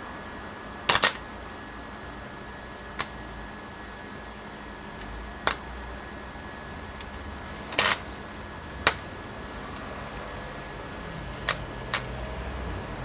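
Sharp metallic clinks and taps, about seven of them, spaced irregularly a second or more apart, two coming as quick doubles: metal being struck or set down in a workshop.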